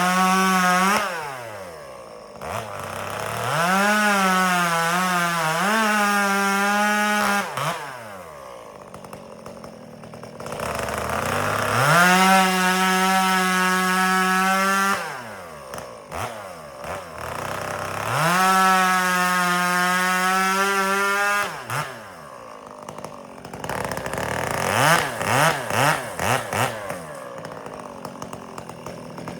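Two-stroke chainsaw bucking firewood: it is run up to full throttle and held through four long cuts of about two to five seconds each, falling back toward idle between them. Near the end come several short, quick blips of the throttle.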